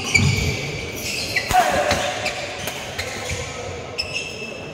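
Badminton rally: sneakers squeaking sharply on the wooden court floor as the players lunge, with sharp racket hits on the shuttlecock and footfalls.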